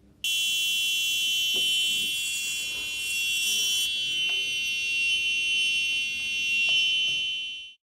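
Household carbon monoxide alarm's buzzer sounding its alarm: one steady high-pitched tone that starts abruptly and cuts off near the end, as the alarm status is released.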